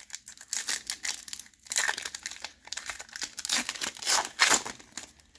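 A trading card pack's foil wrapper being torn open and crinkled by hand, a dense crackle that comes in several louder surges.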